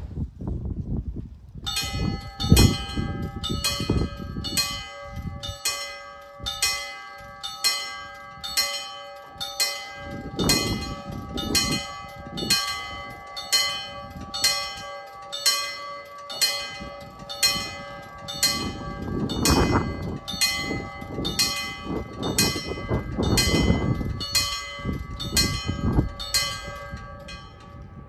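Level crossing warning bell starting up about two seconds in and striking steadily, about one and a half strokes a second, to signal the barriers coming down for an approaching tram-train.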